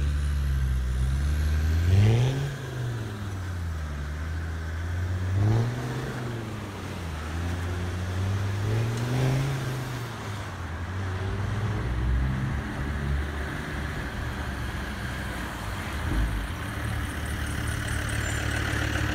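Motor-vehicle engine sound running steadily and revving up three times, about two, five and a half and nine seconds in.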